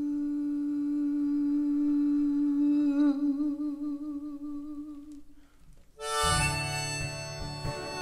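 A man's sung note held for about five seconds, wavering into vibrato and fading out at the end of a folk ballad. About six seconds in, a harmonica on a neck rack comes in loudly with chords, starting the instrumental outro.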